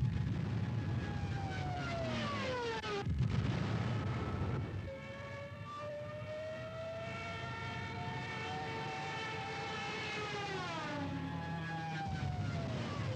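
Junkers Ju-87 Stuka dive bombers: a low engine rumble under a whining tone. The tone falls in pitch over the first three seconds, climbs slowly, then falls again near the end, as aircraft pass by.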